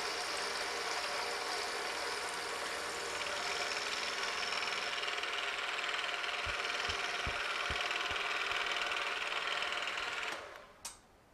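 Milling machine spindle running at about 1100 RPM with a 3/8-inch four-flute end mill taking one pass along the side of a hex nut blank, milling a flat 31 thousandths deep. A few low knocks come midway; about ten seconds in the machine stops suddenly, followed by a single sharp click.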